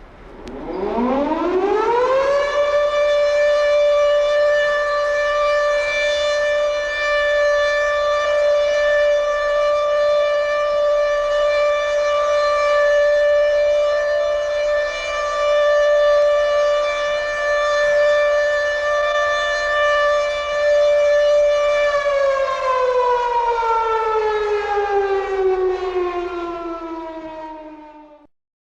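Air-raid siren winding up in pitch over about two seconds, holding one steady note for about twenty seconds, then winding down in pitch near the end and cutting off.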